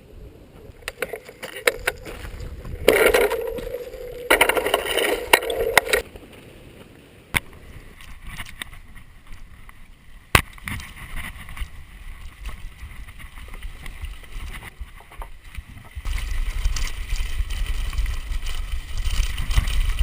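Bicycle riding noise from a bike-mounted action camera: scattered rattles and clicks. Louder noisy stretches about three seconds in carry a steady tone, and a low rumble comes in over the last few seconds.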